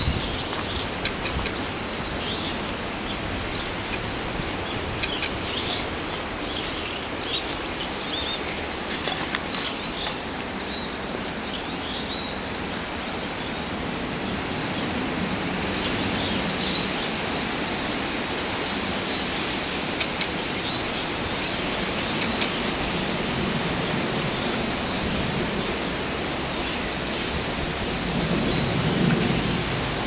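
Several wild birds chirping and calling now and then, short high notes scattered over a steady rushing noise that is the loudest thing throughout.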